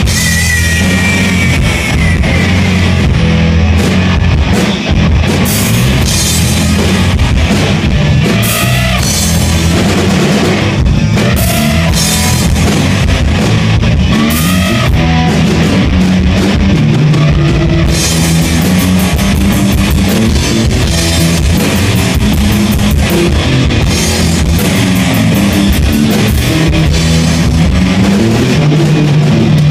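Live rock band playing an instrumental passage: electric guitars, bass guitar and drum kit, loud and steady. A high, falling glide in pitch rides over the band in the first few seconds.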